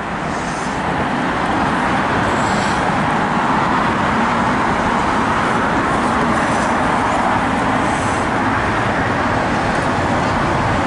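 Steady city street traffic noise, an even rush of passing vehicles, with a few faint clicks.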